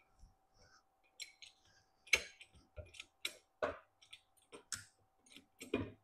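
Hydraulic trolley floor jack being pumped with its long handle to raise the CNC machine's gantry. It gives a string of irregular metallic clicks and clunks, about one or two a second, with more of them in the second half.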